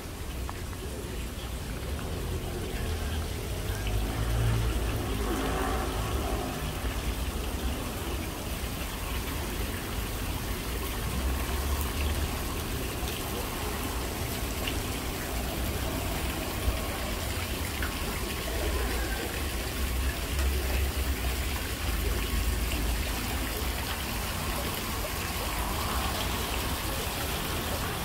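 Steady outdoor ambience: an even rushing noise over a low, wavering rumble, with faint voices.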